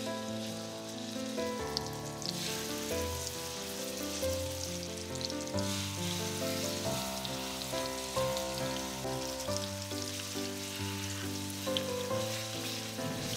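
Raw seasoned chicken breasts sizzling as they are laid into hot oil and butter in a frying pan, the sizzle picking up about two seconds in. Background music plays throughout.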